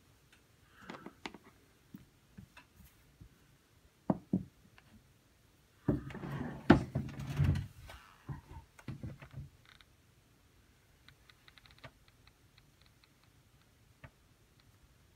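Handling noises of a cloth being spread on a wooden desk and a smartphone set down on it: soft rustles and light knocks, with a loud cluster of bumps and knocks about six to eight seconds in, then faint light clicks.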